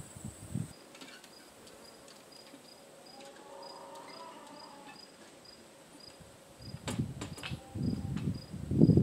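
Crickets chirping steadily, about three short high chirps a second. Knocks and thumps near the end.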